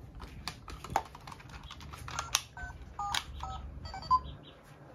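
Buttons being pressed on a small red handheld electronic toy: a series of sharp clicks, many followed by short electronic beeps, some in two-note pairs.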